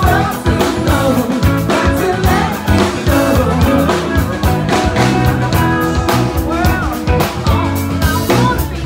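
Live band playing rock-style music, with a steady drum beat and bass under gliding guitar or vocal lines.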